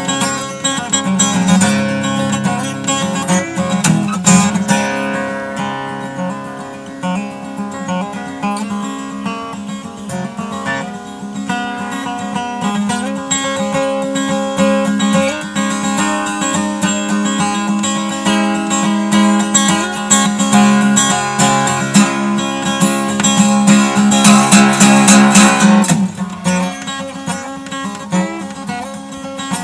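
Solo cutaway acoustic guitar playing a blues instrumental, a run of picked notes and strums. About three-quarters of the way through it swells into a louder, denser strummed passage, then drops back suddenly.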